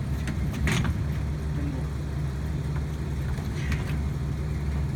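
A steady low engine rumble, like an idling motor, with a couple of brief knocks about a second in and near the end.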